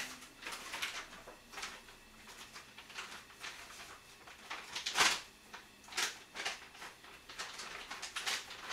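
Pot of budae-jjigae on a gas burner coming up to the boil, giving irregular faint pops and crackles as it starts to bubble, with one louder pop about five seconds in.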